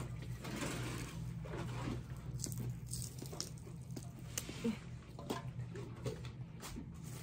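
Fresh minari (water dropwort) stems being trimmed by hand: leafy rustling with many small, sharp snaps and clicks as stems are broken and pulled apart, over a steady low hum.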